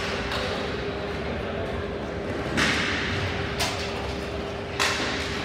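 Ball hockey play: three sharp clacks of stick and plastic ball, about a second apart in the second half, over a steady hum.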